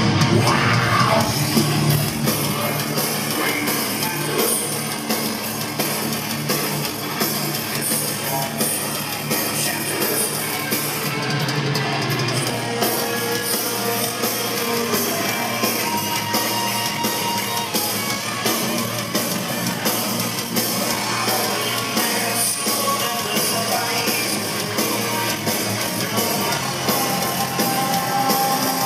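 Heavy metal band playing live, heard from the audience: distorted electric guitars, bass guitar and a drum kit.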